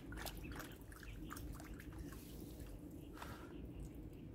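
Faint scattered clicks and rustling, mostly in the first second and a half, with one brief scrape about three seconds in, over a low steady background rumble.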